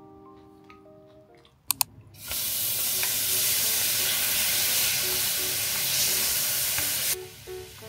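Sliced raw meat sizzling in hot oil in a ceramic frying pan, as an even, loud hiss. It starts suddenly about two seconds in and cuts off near the end. Soft music plays before it, with two sharp clicks just before the sizzle begins.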